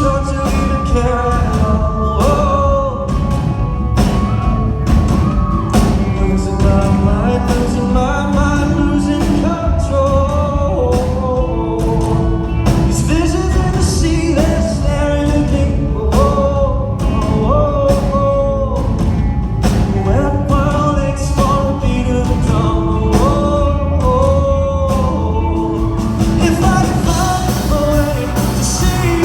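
Male singer performing a rock song live, backed by instruments.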